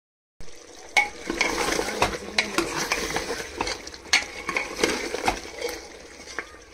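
Mutton curry being stirred in a cooking pot, the spoon knocking against the pot at irregular intervals over a steady sizzle.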